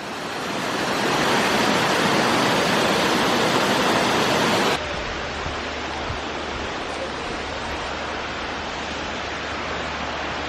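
Waterfall rushing, a loud, steady roar of falling water. About five seconds in it cuts off abruptly to a quieter, steady hiss.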